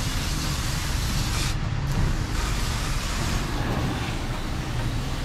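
12 V portable car washer's 80 W pump running steadily while its spray gun jets water: a low motor hum under a hiss of spray. The hiss drops out for a moment about a second and a half in.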